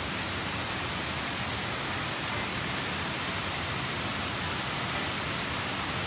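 The Mae Ya waterfall's water pouring down its many rock tiers: a steady, even rush of falling water.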